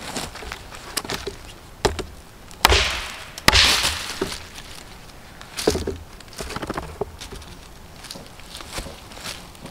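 Hatchet chopping a dry dead branch laid across a tree stump: a series of sharp wooden strikes and cracks, the two loudest about two and a half and three and a half seconds in, each trailing off briefly.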